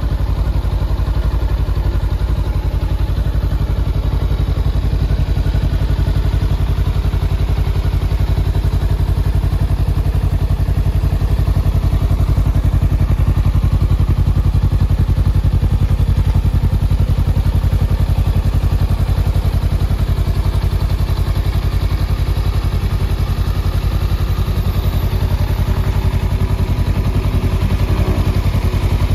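Honda Rebel 500's 471 cc parallel-twin engine idling steadily through an aftermarket muffler, with a low, even exhaust beat.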